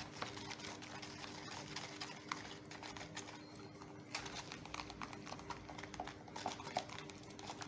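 A hand swishing and squeezing shampoo water in a plastic bowl to work up a lather: faint, irregular sloshing with many small splashy ticks.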